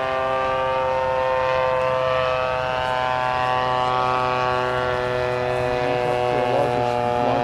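Radio-controlled model airplane's motor and propeller droning steadily in flight, its pitch shifting slightly.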